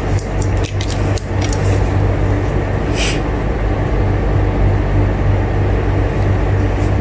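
Steady low hum of room noise, with a few light clicks and a short scrape about three seconds in as a plastic ruler is shifted into place on the drawing sheet.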